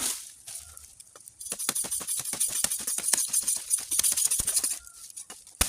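Dry bamboo twigs and leaves rustling and crackling for about three seconds as they are handled and stripped from the felled stem, with a single sharp knock near the end.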